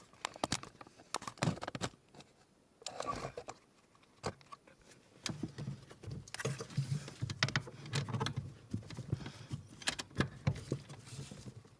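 Irregular clicks, knocks and scrapes of metal and plastic as a steering column shaft is worked back and forth to pull it out, with the shaft catching on its bracket and plastic retainer.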